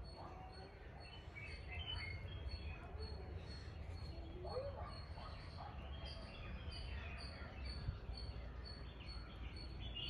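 Birds chirping and calling faintly in the forest, over a steady low rumble.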